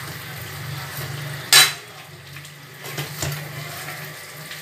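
Metal spatula and tongs scraping and clinking against a steel kadai as chicken and potatoes are stirred, over a steady sizzle of frying. One sharp clang about one and a half seconds in is the loudest sound, with lighter clinks near three seconds.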